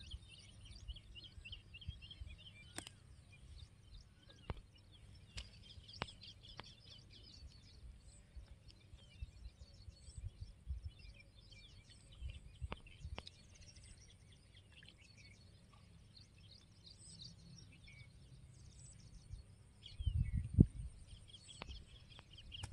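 Small birds chirping and twittering in the background over a low rumble, with a few faint clicks. A louder low thump and rustle comes near the end.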